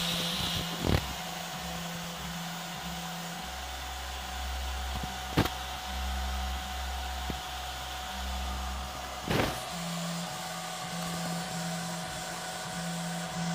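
CoreXY 3D printer printing a 20 mm cube: its stepper motors hum and whine in low tones that switch every second or two as the head moves, with a faint steady higher whine under them. Three sharp clicks come about four seconds apart.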